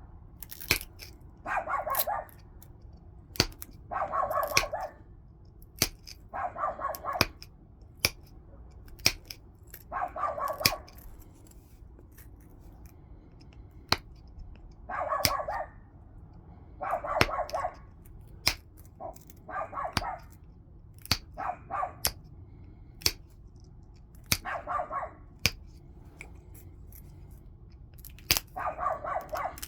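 A stone point being worked by hand: sharp clicks of tool on stone as small flakes come off, with about nine louder rasping strokes of half a second to a second each between them.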